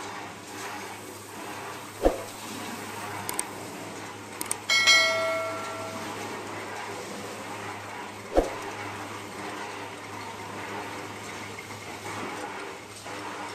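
Metal-spinning lathe running with a steady hum in a pot workshop, with two sharp knocks about two and eight seconds in. About five seconds in a metal piece clangs and rings like a bell for about a second.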